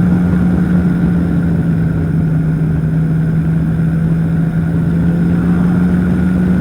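Powered parachute's engine and propeller running at a steady, unchanging pitch in flight, loud and close to the microphone.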